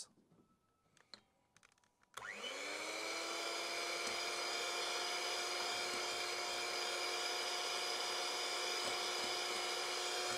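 Electric hand mixer switched on about two seconds in, its motor spinning up quickly to a steady whine as the beaters whisk egg yolks. Before it starts there are only a few faint handling ticks.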